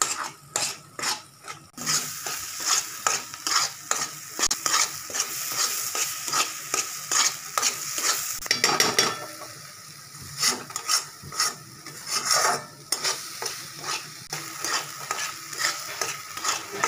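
Spatula stirring and scraping a thick ground masala paste frying in oil in a kadhai, in regular strokes about two or three a second, over a steady sizzle: the masala being fried down until the oil separates.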